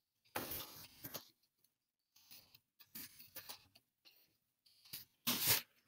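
Computer keyboard being typed on in short, irregular runs of key clicks, with pauses between.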